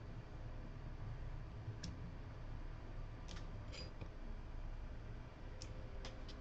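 Steady low hum with a few light, scattered clicks and taps as the phone logic board and its metal holder are handled and moved.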